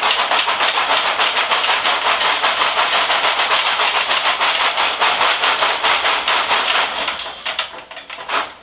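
The giant robot's engine running with a fast, even pulsing while it drives the legs, falling away near the end.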